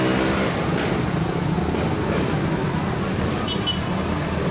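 Steady din of street traffic under a flyover, with motor engines running and voices from a crowd mixed in. A short high double beep sounds about three and a half seconds in.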